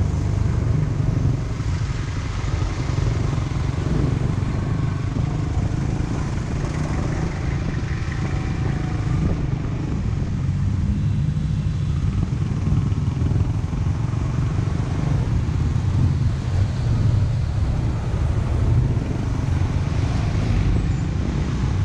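Motorbike engine running steadily at low speed, heard from on the bike, with road and traffic noise around it.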